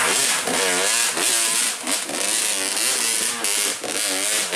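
Off-road trail motorcycle engine revving in short throttle blips, its pitch rising and falling over and over, about every half second.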